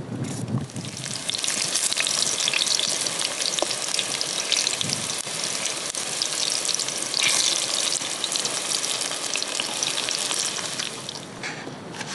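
Eggplant slices frying in hot oil in a pan, a steady sizzle full of fine crackles that dies down near the end.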